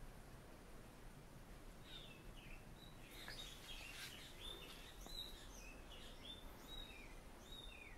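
Faint bird chirps: a run of short, high notes, some slurring downward, starting about two seconds in over a quiet hiss of background noise.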